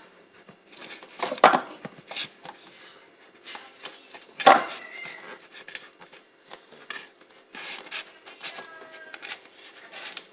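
Metal ice cream scoop scraping and knocking against a cup while ice cream is put into it, with two louder knocks about one and a half seconds and four and a half seconds in, among scattered small clicks and scrapes.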